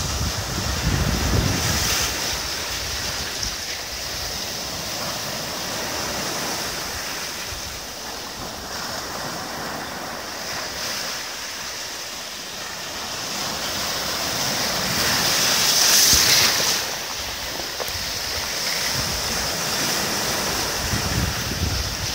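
Ocean surf breaking and washing up the sand at the water's edge, a continuous rush of foaming water that swells and ebbs with each wave. It is loudest about two-thirds of the way through.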